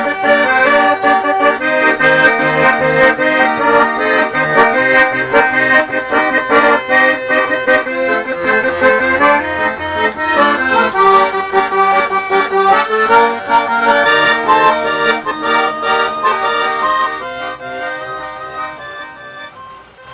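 Background music: an instrumental break in a song, with fast-changing notes, fading out over the last few seconds.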